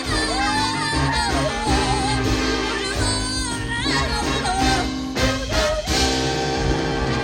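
Jazz big band playing a slow ballad, held horn chords under a bending, sliding melodic line. Near the end the band breaks off briefly and lands on a new sustained chord.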